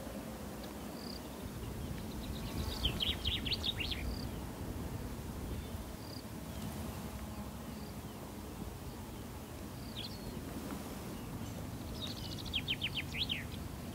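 Outdoor ambience with a steady low rumble, and a small songbird calling: a quick run of high notes about three seconds in and another near the end, with a few single chirps between.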